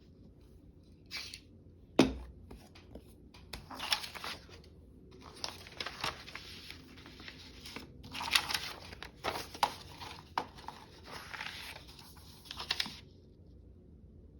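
Paper being torn by hand in several long rasping pulls, with a sharp knock on the work table about two seconds in.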